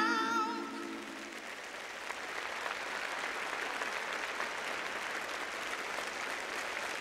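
A held sung note with vibrato and the backing music fade out in the first second, then a large audience applauds steadily.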